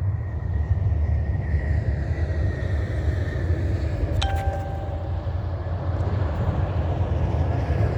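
Steady low rumble of wind on the microphone, with a single sharp metallic clink about four seconds in that rings briefly.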